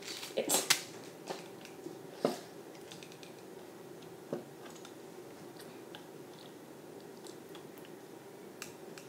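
A few small clicks and taps of kitchen items being handled, mostly in the first two seconds with one more about four seconds in, over a steady low hum.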